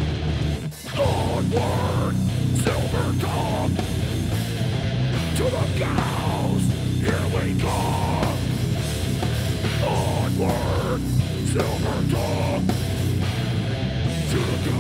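Heavy metal band playing live: distorted electric guitar, bass guitar and drums. The band drops out for a brief break about a second in, then comes back in full with harsh shouted vocals over it.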